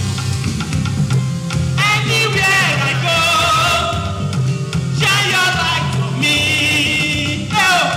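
A woman singing a worship song into a microphone over a backing track with a steady bass line; her sung phrases come in about two seconds in, again around five seconds, and near the end.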